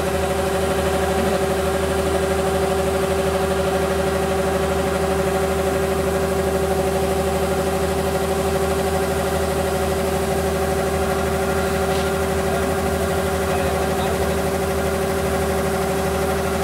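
Kubota rice combine harvester running steadily while it unloads, its engine giving a constant hum with several steady tones, as the unloading auger pours threshed paddy grain out of its spout.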